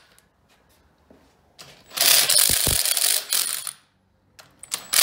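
Cordless power driver with a socket on an extension spinning in two bursts, backing off the rocker arm bolts to release pushrod and lifter preload: a rapid clattering about two seconds in lasting under two seconds, and another starting near the end.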